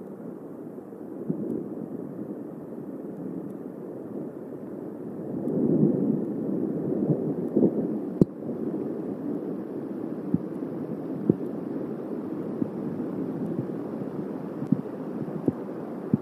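Low rumble of a thunderstorm that swells about six seconds in, with scattered sharp ticks through it.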